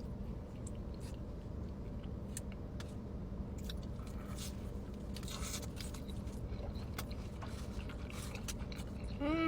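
Close-miked chewing of a bacon burger, soft mouth sounds with scattered small crunching clicks and a denser patch of crunching about halfway through, over a steady low background hum.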